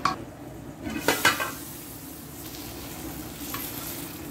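A steel lid clinks and rattles against the metal cooking pan about a second in, over the steady sizzle of minced meat and potatoes simmering on low heat.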